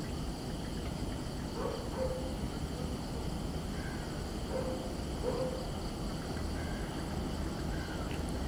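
Distant Indian Railways diesel locomotive approaching, its engine a steady low rumble, with a few short animal calls over it, twice in the first couple of seconds and twice more around the middle.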